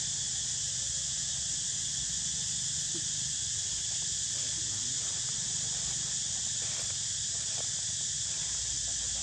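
Steady high-pitched insect chorus droning without a break, with a low rumble underneath.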